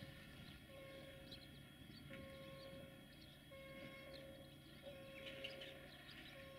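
Faint repeating warning tone, each about a second long with short gaps between, over the low steady hum of a distant rail maintenance draisine's engine. Birds chirp now and then.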